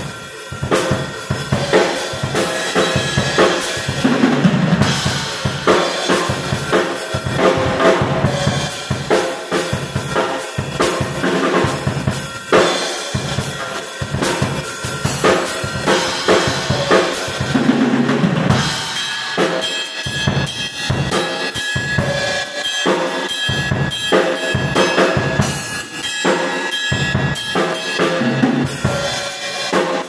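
An MW acoustic drum kit played without a break, with bass drum, snare and cymbals, its rack tom and floor tom fitted with new heads and freshly tuned.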